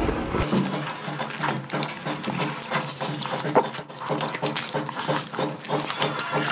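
Close-miked eating sounds: wet chewing of a mouthful of noodles, with many small crackling clicks, then the crisp rustle of fresh lettuce leaves being picked up and handled.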